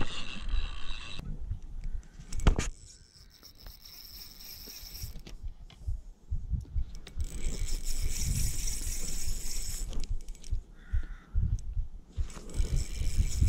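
Spinning reel being cranked, its gears and rotor whirring in a long spell through the second half, with a sharp click about two and a half seconds in. Wind buffets the microphone underneath.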